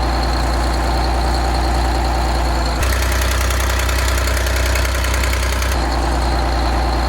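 Detroit Diesel 6V92 two-stroke V6 diesel running steadily at idle, now fitted with a new exhaust manifold gasket to cure an exhaust leak; the leak noise should be gone. The sound shifts abruptly in tone about three seconds in and again near six seconds.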